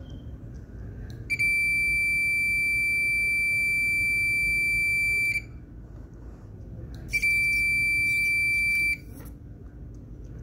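Small electronic buzzer on an air-filter restriction switch sounding a steady high beep twice, first for about four seconds and then for about two, signalling that the switch has tripped at high intake vacuum. Light clicks and handling noise come during the second beep.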